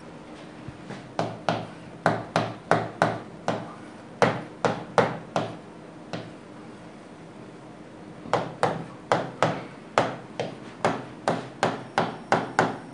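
Stylus tapping and knocking against an interactive whiteboard screen while words are written, in quick runs of sharp taps about two to three a second, with a pause in the middle.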